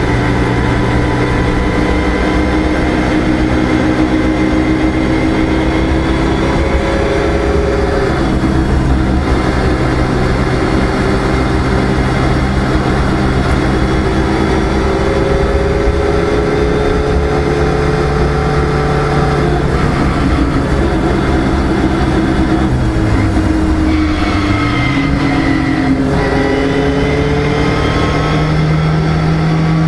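Car engine running under way, heard from inside the cabin with road noise. Its pitch holds steady for long stretches, dips and comes back up about two-thirds of the way through, and rises near the end as the car accelerates.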